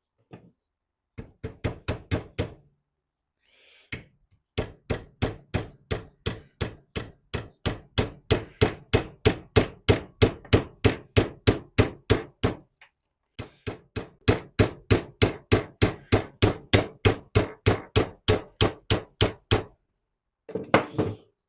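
A hammer tapping a steel split roll pin into a drilled hole in wood, steady strikes at about three a second in three runs: a short run near the start, then two long runs with a brief pause between them.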